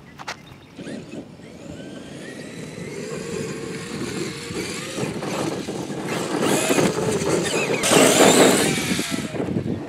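Traxxas X-Maxx 8S electric RC monster truck driving on dirt. Its motor whines, with the pitch rising and falling as the throttle changes, and grows louder as the truck comes closer. There is a loud rushing noise near the end as it passes close.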